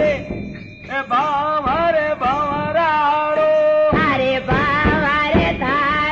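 Music: a melody with a bending, ornamented pitch line, joined by percussion strokes about four seconds in.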